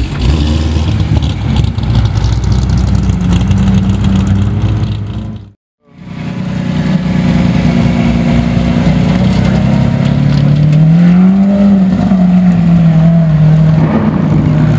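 Sports car exhausts at low speed: a Chevrolet Corvette ZR1's supercharged V8 running as it pulls past. After a sudden short break about five seconds in, a Lamborghini Aventador's V12 drives away, its pitch rising and falling once a few seconds before the end.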